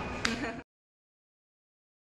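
Brief tail of children's voices and hall ambience, with a sharp click, cut off abruptly about half a second in; then dead silence.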